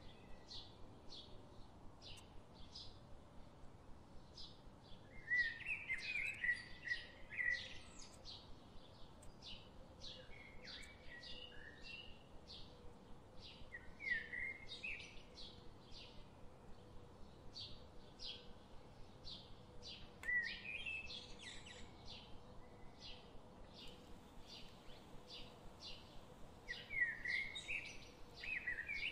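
Birds chirping: a steady run of short, high chip notes about two a second, with bursts of warbling chirps every few seconds.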